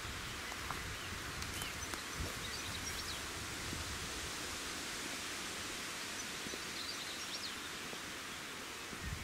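Outdoor countryside ambience: a steady rustling hiss of wind in grass and trees, with a few short bird chirps scattered through.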